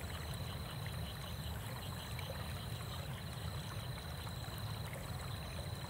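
Steady, quiet wash of flowing river water, with a faint thin high tone pulsing softly above it.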